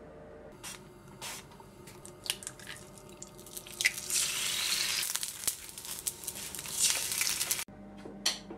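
Eggs frying in hot oil in a frying pan: a second egg is dropped in about four seconds in, followed by loud, steady sizzling that cuts off suddenly after about three and a half seconds. Before this come scattered clicks and taps of kitchen handling.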